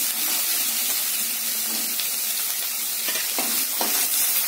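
Chopped onion and green capsicum sizzling in hot oil in a non-stick kadai while being stir-fried with a spatula, with a few short scrapes of the spatula against the pan near the end.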